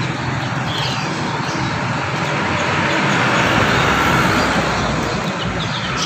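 Steady rushing background noise, like traffic, with a few short, high bird chirps over it.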